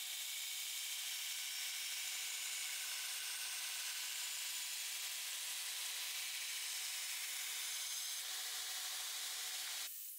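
Belt grinder grinding the bevels of a layered 1084/1520 twist-damascus knife blade held by hand against the belt: a steady, even hiss of abrasive belt on steel that cuts off suddenly near the end.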